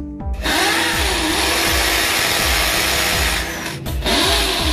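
Corded electric drill running, boring a hole into a concrete wall for a switch mounting. It starts about half a second in, stops briefly near the end, then starts again.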